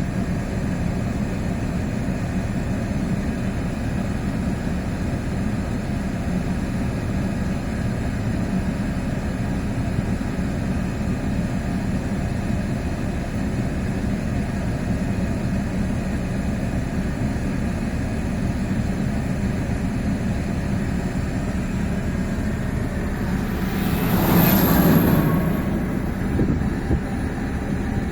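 MAZ truck's diesel engine running steadily with an even low pulsing, then revving up louder for a couple of seconds near the end.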